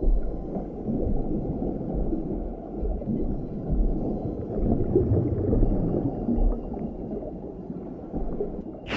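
Film sound effects of heavily churning river water with a deep, uneven rumble, as a giant snake surges out of the river. A sudden sharp rush of noise cuts in at the very end.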